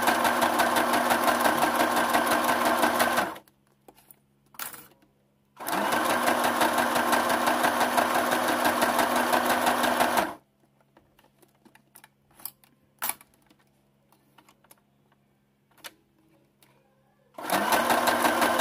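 Domestic electric sewing machine stitching fabric bias binding onto clear plastic in three runs, with a fast, even stitch rhythm. The first run stops about three seconds in, a second runs for about five seconds in the middle, and a third starts near the end. Small clicks of handling come between the runs.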